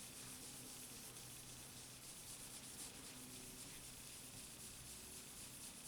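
Faint rubbing of a rag loaded with metal polishing compound, worked in circles over an aluminium heat sink.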